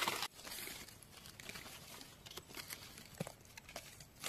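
Faint rustling and crinkling with scattered small clicks and snaps, with a louder rustle right at the start: hands and feet working through leaf litter while wild mushrooms are picked.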